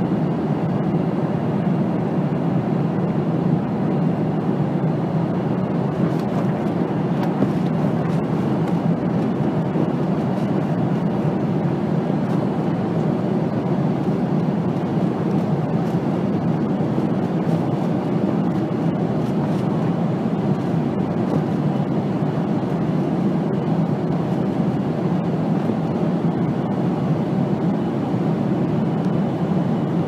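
Jet airliner cabin noise in cruise: the steady, deep rush of engine and airflow noise heard from a passenger seat, even throughout with no changes.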